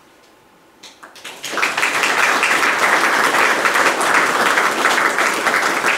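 Audience applauding, starting about a second in and quickly building to steady, dense clapping.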